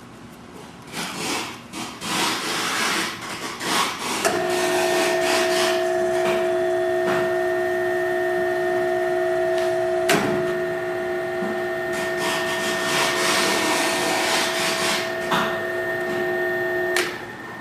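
Knocking and clatter for a few seconds, then a drill tap machine tapping three 10-32 holes at once starts and runs with a steady whine over a cutting and rubbing noise. There is a single sharp click partway through, and the machine stops shortly before the end.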